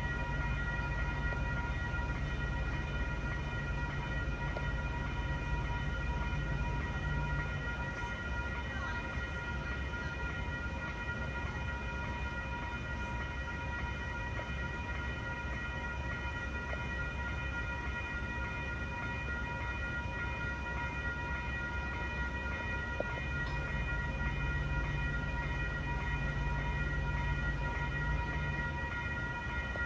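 Railroad grade-crossing warning bell ringing on and on, a set of steady high tones, over a low engine rumble.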